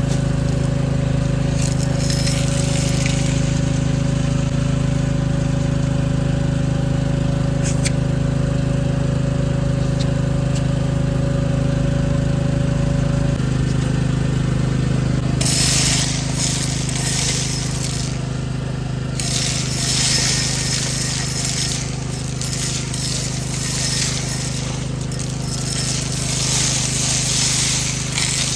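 Vacuum cleaner running steadily, its motor humming, with long stretches of rushing hiss from about halfway as it sucks up dirt and debris.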